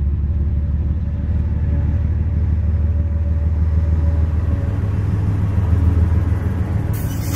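Norfolk Southern and Canadian Pacific GE diesel locomotives passing close by at the head of a freight train: a steady, loud low engine rumble with a faint hum above it. A short burst of hiss comes near the end.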